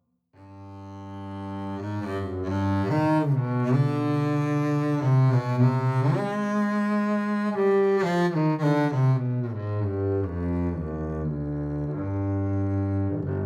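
Double bass solo, bowed: a melody of sustained low notes moving from note to note, starting softly and swelling over the first couple of seconds.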